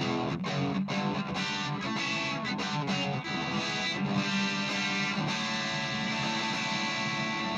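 Electric guitar chords strummed through a Marshall MG10CF practice amp's overdrive channel with the gain at about nine o'clock, so it breaks up only a little. Quick strums at first, then a chord left ringing over the last couple of seconds.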